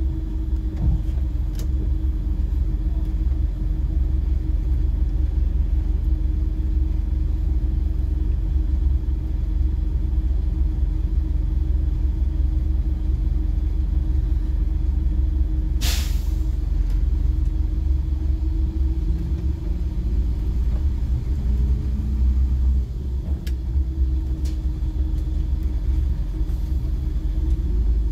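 Scania CN270UB city bus engine idling with a steady low rumble in the cab. About halfway through comes a short hiss of compressed air from the air brakes, and near the end the engine note shifts as the bus creeps forward.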